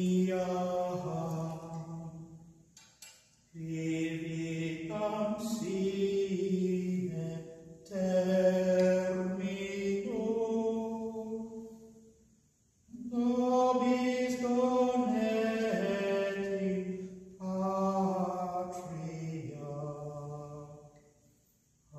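A single voice singing a slow, chant-like hymn in phrases a few seconds long, with brief pauses between them.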